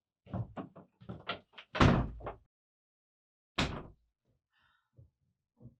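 A wooden door banging shut about two seconds in, the loudest sound, after a short run of knocks and clatter, with a second sharp knock about a second and a half later and soft taps near the end.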